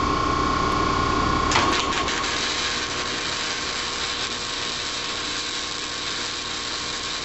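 MIG welder arc running on a steel hitch part: a steady hum, then about a second and a half in a sharp crack, after which a steady buzzing sizzle carries on.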